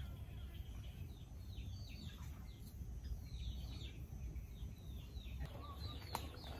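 Birds chirping: a run of short, high, falling chirps, several a second, over a faint low outdoor rumble, with a single sharp click near the end.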